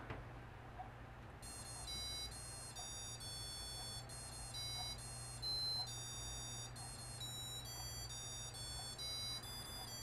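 A hobby robot's piezo speaker playing a tune in buzzy electronic beeps, a string of short notes that change pitch every fraction of a second, starting about a second and a half in.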